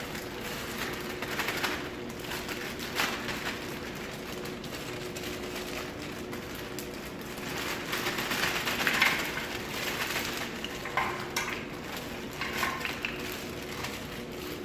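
Chair casters being pushed by hand into the sockets of an office-chair base: scraping and rustling with scattered clicks, busiest about halfway through, over a faint steady hum.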